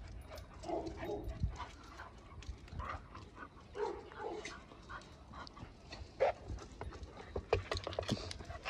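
A dog making a few short whining sounds, with light clicks and scuffs in between.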